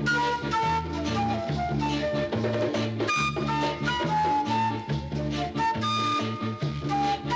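Instrumental roots reggae record playing: a repeating bass line under a lead melody of held notes, with no vocals.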